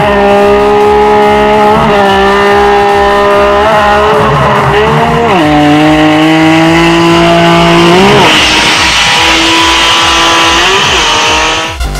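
Car engine held at high revs, its pitch dropping about five seconds in and climbing again near eight seconds, as the car launches and does a smoky burnout. A steady electronic music beat plays underneath.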